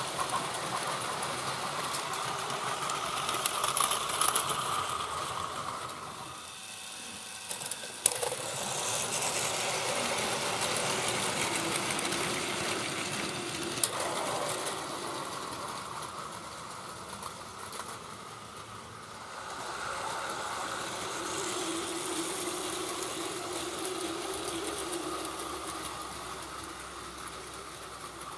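Plarail battery-powered toy trains running on plastic track: a steady whir of the small motors with the rattle of plastic wheels over the track, dipping briefly about a quarter of the way in, with two sharp clicks.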